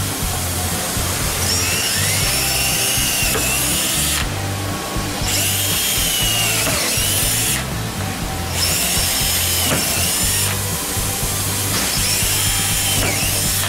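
Cordless drill boring the sump's bolt-circle holes through a plastic fuel tank, run in about four bursts with short pauses between, its whine rising as it spins up and falling as it slows.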